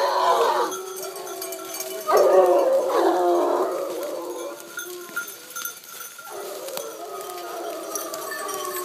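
A pack of Grand Gascon hounds baying, several long drawn-out voices overlapping. The voices are loudest at the start and again about two seconds in, then fainter ones carry on.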